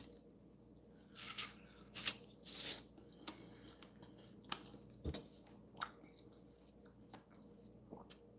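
A person biting into and chewing a piece of fresh watermelon: faint crunches and clicks at irregular intervals.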